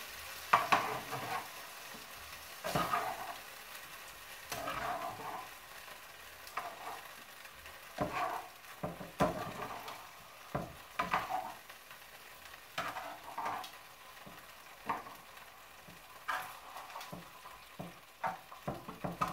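Metal tongs clicking and scraping in a frying pan, about once every second or two, as browned beef chunks are picked out into a bowl, over the low sizzle of the oil.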